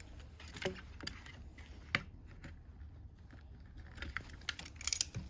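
Handling noise: scattered light clicks and rattles of small parts being moved around, with a quick run of sharper clicks near the end.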